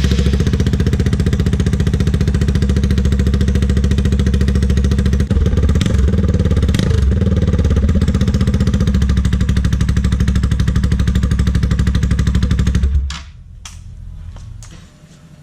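Kawasaki Rouser RS200's single-cylinder engine running loud through its exhaust, a steady fast-pulsing exhaust note with a brief rev in the middle. About thirteen seconds in, the loud note cuts off suddenly to a much quieter engine sound.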